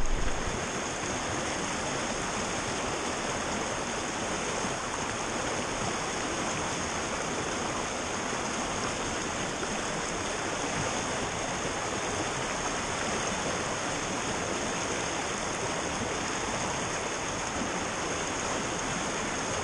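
Fast-flowing creek water rushing over rocks in a steady wash.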